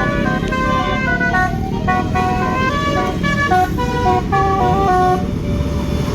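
Tour bus 'telolet' musical horn playing a quick tune of short, stepping notes, several tones at once, which stops about five seconds in. A steady engine and traffic rumble runs underneath.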